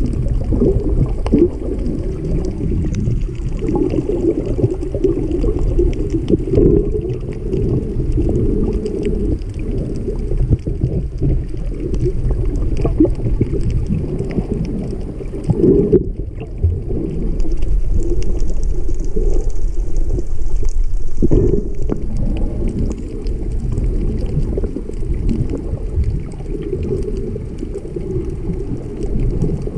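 Muffled underwater water noise heard through a GoPro's waterproof housing: a low, uneven churning and sloshing with faint scattered clicks.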